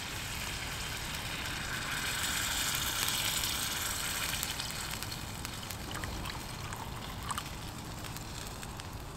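Water poured from a bottle into a hot carbon-steel frying pan of tomato sauce over a campfire, hissing as it hits the pan. The hiss builds to its loudest about two to four seconds in, then eases off into a lower simmer.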